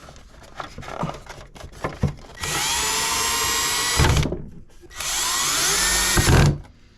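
Power drill driving screws, run twice for about a second and a half each, its motor whine rising in pitch as it spins up, with small handling clicks before.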